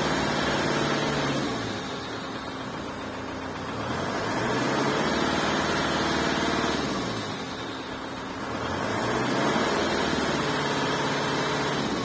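2001 Kia Carnival's 2.9-litre turbo diesel engine revved to about 2,000 rpm and let back down, its pitch rising and falling three times, each rev held for a few seconds.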